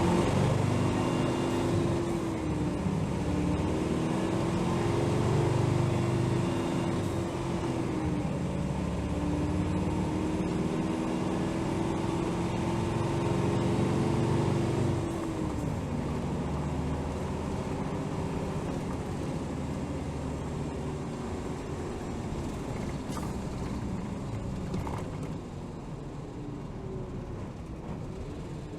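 Hino Rainbow HR city bus's diesel engine pulling away through the gears: its pitch climbs and drops back at each shift, about three and eight seconds in, then again near the middle. After that it eases off to a quieter, steady running sound.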